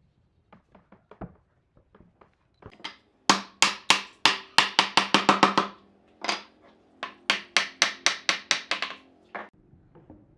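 Mallet striking a wooden chair backrest to drive it into its slot in the seat. A few light taps come first, then two fast runs of loud knocks, about four a second, each with a short woody ring.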